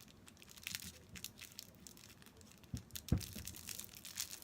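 Hands handling packaging: light rustling and scattered small clicks, with two soft knocks about three seconds in.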